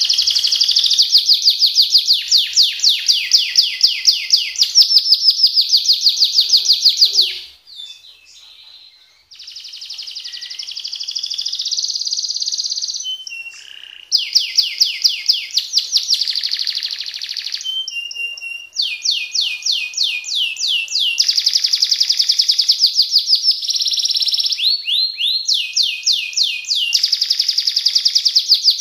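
Domestic canary singing a long song of fast rolls, phrases of rapidly repeated notes that change from one phrase to the next. The song breaks off for about two seconds roughly eight seconds in, then carries on.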